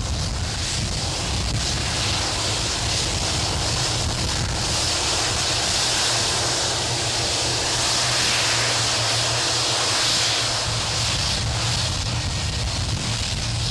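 Boeing 757-200 freighter's Rolls-Royce RB211 turbofans running at low taxi power as the jet rolls past, a steady rushing hiss over a low hum. The hiss swells through the middle and eases near the end.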